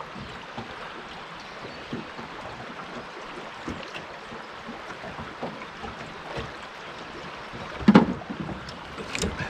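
River water washing against the hull of a drift boat, a steady wash, with scattered light knocks and one loud thump about eight seconds in.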